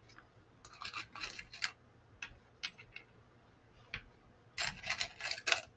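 Faint small clicks and taps from hands handling a sign panel as it is shifted and pressed into place on a wooden board. They come in a short cluster about a second in, a few single ticks, and a denser cluster near the end.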